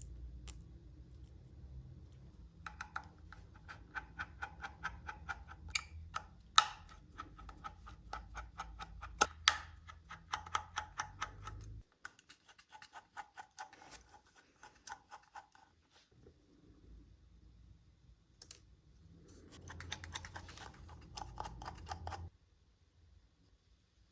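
Rapid, light clicking and ticking of small hand tools working on the parts of a first-generation iPhone SE being taken apart. There is a long run of clicks for several seconds, then quieter scattered ticks, then a second shorter run near the end.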